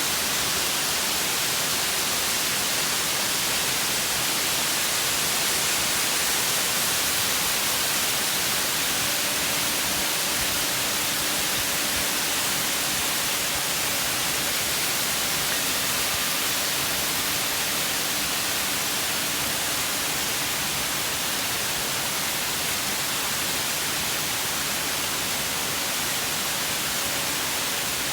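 Waterfall's steady rushing roar, heaviest in the high range. From about nine seconds in, faint sustained ringing tones of a Singing Ring, a Japanese singing bowl, hold under the water noise.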